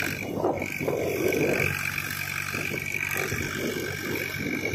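Swaraj 744 FE tractor's three-cylinder diesel engine running steadily as it pulls through deep mud, with a steady high-pitched whine above it.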